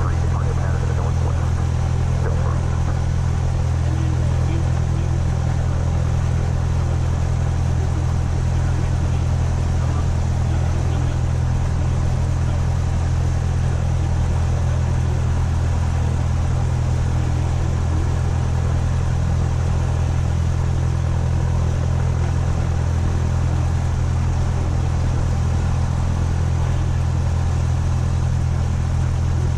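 Cessna 172 SP's four-cylinder Lycoming IO-360 piston engine and propeller idling steadily, heard from inside the cabin as a constant low drone.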